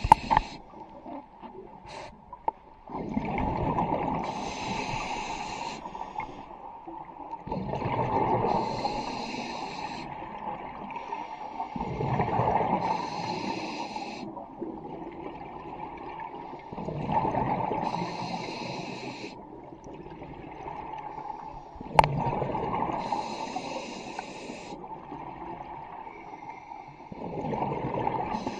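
Scuba diver breathing through a regulator underwater: each breath brings a hiss of air and a rumble of exhaust bubbles, repeating steadily about every four to five seconds. A single sharp knock sounds about three-quarters of the way through.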